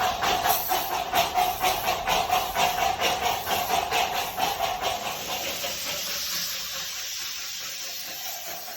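Darjeeling Himalayan Railway steam locomotive chuffing in even beats of about four a second over a steady tone. About six seconds in, the beats and the tone fade away and leave a softer steam hiss.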